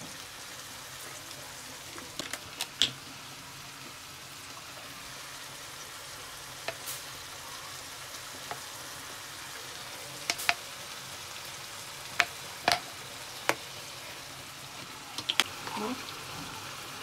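Diced vegetables sizzling in hot oil in a frying pan: a steady frying hiss, broken by a scattering of sharp clicks from a metal spoon knocking against the pan.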